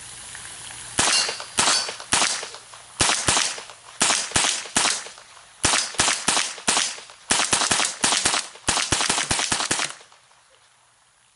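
Rapid semi-automatic .22 LR gunfire from a Kel-Tec PLR-22 pistol: about thirty sharp shots in quick strings, starting about a second in and getting faster toward the end before stopping shortly before the end.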